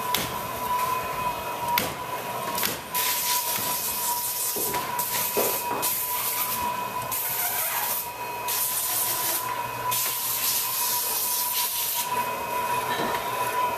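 Brushless linear motor XY positioning stage running through a motion sequence: a steady high-pitched hum from the servo drive, with repeated bursts of hiss as the carriages move on their crossed-roller slides, and a few sharp clicks in the first few seconds.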